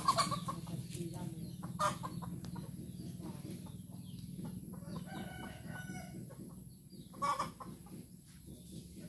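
Chickens clucking, with short loud calls right at the start and again a little after seven seconds, and a rooster crowing for about a second just past the middle. A low steady hum sits underneath through the first half.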